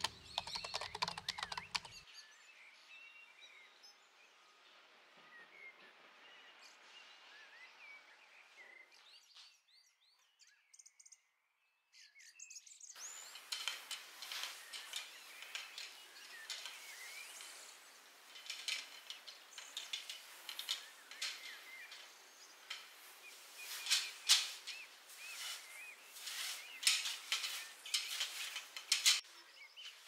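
Birds chirping faintly as a song ends in the first two seconds. From about 13 seconds in come close rustling and light clicks as sheer fabric is handled, with the birds still chirping.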